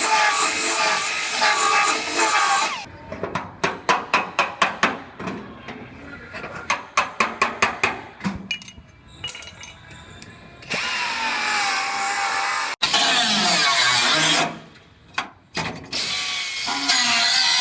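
Power tools working on a truck's rusted steel bedside. A steady whining, grinding sound is followed by a run of sharp clicks at about four a second lasting several seconds, then the grinding sound returns in stretches with short pauses.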